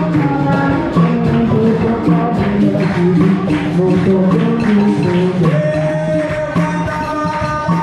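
Live capoeira roda music: a steady beat of hand percussion with tambourine jingles, the pandeiro, under a group singing held notes.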